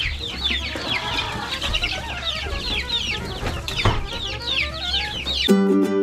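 A flock of young chicks in a brooder peeping continuously, many short overlapping calls that each fall in pitch, over a steady low hum. Background ukulele music cuts in near the end.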